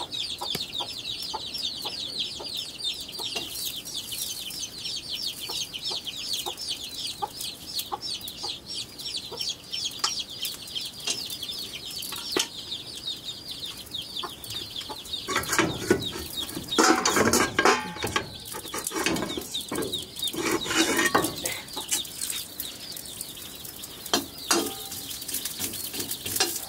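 Chickens cheeping high and fast, a rapid run of short repeated calls. About halfway through, a few seconds of clattering and knocks.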